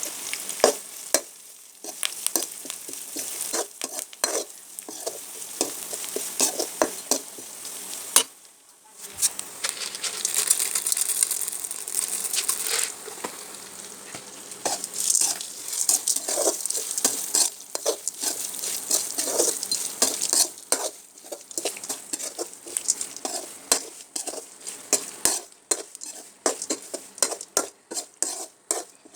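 Snack batter frying in hot oil for South Indian mixture, sizzling steadily, while a metal ladle stirs it with many quick scrapes and knocks against the pan.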